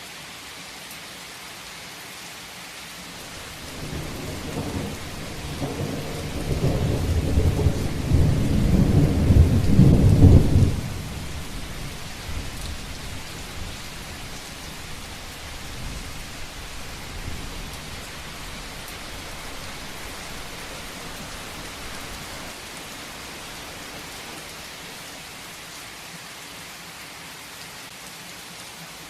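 Heavy rain falling steadily, with a roll of thunder that builds from about three seconds in, grows loudest a few seconds later, breaks off sharply, then trails away under the rain.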